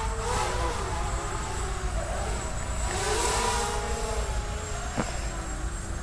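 Grasshopper 300 hexacopter's six brushless motors and propellers whining in flight, the pitch rising and falling as the throttle changes. A sharp click about five seconds in.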